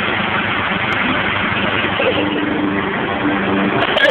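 Lawn mower engine running steadily, with a steady hum that firms up about halfway through.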